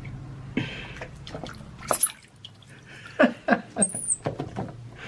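Water splashing and dripping in a bathtub as a pet monkey is put into the bath, with several sharp splashes and a short high squeak a little before the end.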